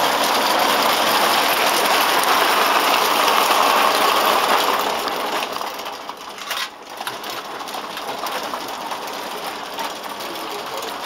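Clockwork tinplate O-gauge train running on tinplate track: a steady whirring of its spring-driven gears and the rattle of wheels on the rails. It is loudest for the first half, then fades as the train draws away.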